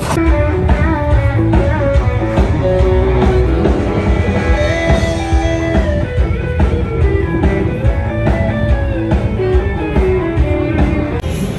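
Instrumental music: a guitar melody over a steady beat, without vocals.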